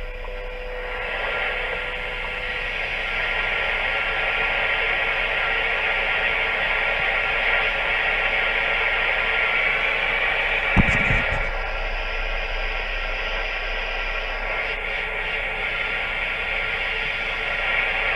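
Ham radio transceiver's speaker giving a steady band hiss while the receiver is tuned, with no stations coming through: the band seems dead. A single short low thump comes about eleven seconds in.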